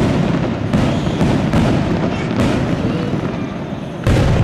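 Aerial firework shells bursting one after another: a string of sharp bangs over the continuous din of the display, with the loudest bang near the end.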